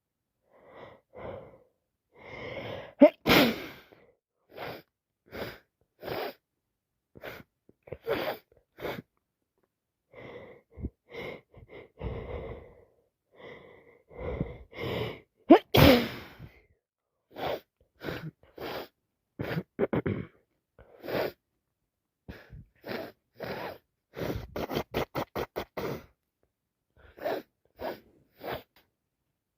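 A woman with a heavy wet head cold sneezing repeatedly, with gasping in-breaths building up to the sneezes. The two loudest sneezes come about 3 and 16 seconds in, and a quick run of short breaths comes near 25 seconds.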